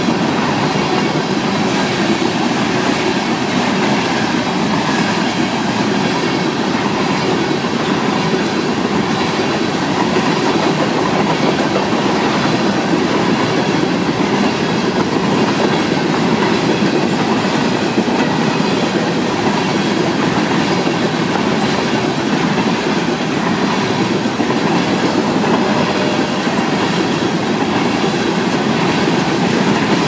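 Freight train of covered hopper cars rolling past, with a steady rumble and clatter of steel wheels on rail that keeps up without a break.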